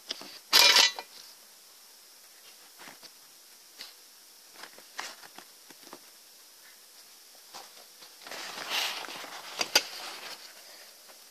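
Paper rustling and light knocks as modular origami paper balls are handled and set down on a table: a short, loud rustle about half a second in, scattered small clicks, and a longer stretch of rustling with a couple of sharp clicks near the end.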